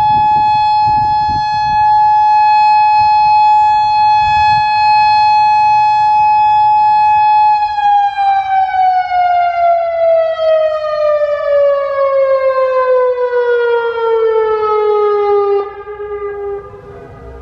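Federal Signal Modulator 6024 outdoor warning siren sounding its alert signal. It holds one steady high tone for about seven and a half seconds, then winds down with the pitch sliding steadily lower. Near the end it drops away sharply in loudness.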